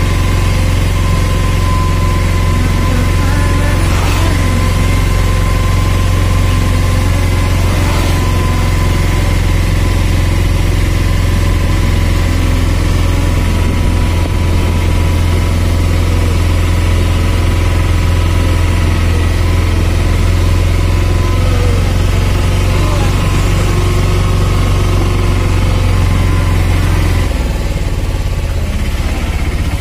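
Vehicle engine running steadily as it drives along, a loud low drone with a constant note. Near the end the engine note drops and it gets slightly quieter.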